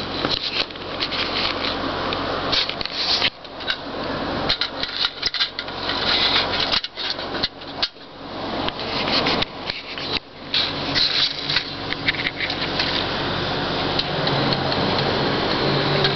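Close handling noise: irregular rubbing, scraping and light knocks from a small toy jeep being turned and moved about by hand, with a few short lulls.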